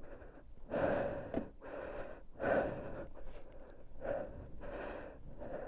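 A man breathing hard and deeply after a motorcycle crash, several heavy breaths about one every second and a half.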